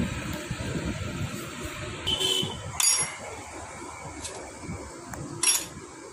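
Metal hand tools and engine parts clinking against a Honda Shine motorcycle's exposed cylinder head as it is being dismantled: about four sharp clinks spread over a few seconds, over low handling rumble.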